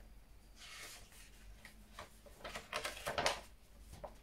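Paper rustling as a folded leaflet is handled and opened: a soft brush of paper about a second in, then a run of short crackles.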